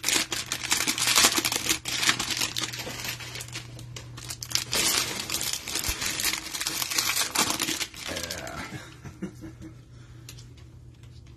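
Plastic wrapper of a trading-card cello pack crinkling and tearing as it is ripped open by hand. About eight seconds in the crinkling dies down to soft shuffling of the stack of cards.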